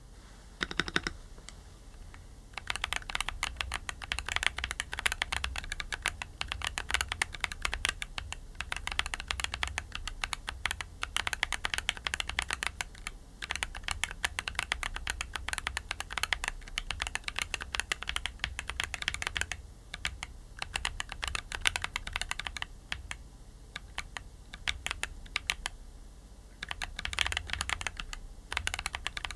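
Typing on a MonsGeek M1 mechanical keyboard fitted with Akko V3 Creamy Purple Pro tactile switches and PBT cherry-profile keycaps: fast, continuous keystroke clacks with a few brief pauses, lighter for a stretch before picking up again near the end.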